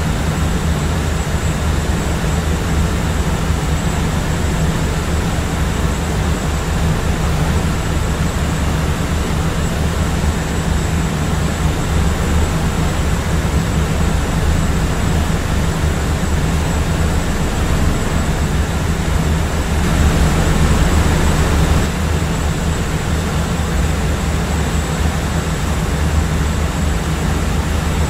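Airplane cabin noise in flight: a steady, even drone of engine and rushing air, heaviest in the low rumble, with a thin high whine on top. It swells slightly for a couple of seconds about two-thirds of the way through.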